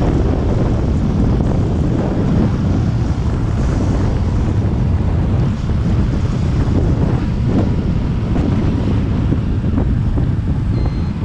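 Wind noise on a GoPro Hero7 Black's microphone while riding a motorcycle: a loud, steady rumble of air buffeting the mic.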